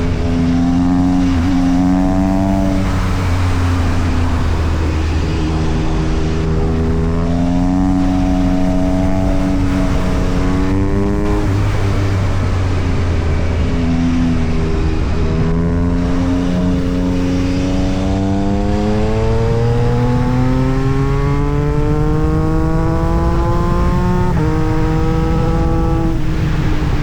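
Yamaha MT-09 SP inline three-cylinder engine running through an Austin Racing aftermarket exhaust, its pitch climbing steadily for a few seconds at a time and then dropping, over and over, with the longest climb near the end.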